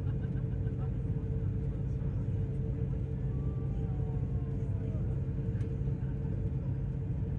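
Steady low rumble of engine and road noise heard inside a moving vehicle, with a constant hum running through it.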